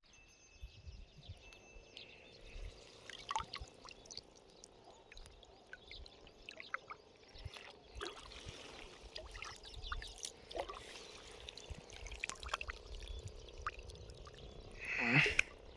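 Water splashing and trickling in small irregular bursts over a low rumble, with one louder splash near the end.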